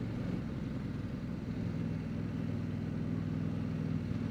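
CFMoto 800MT Explore's parallel-twin engine running at a steady, low note as the motorcycle rides slowly.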